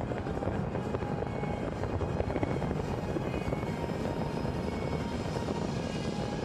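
Aerial fireworks barrage with many shells bursting close together, merging into a steady rumble with a dense crackle.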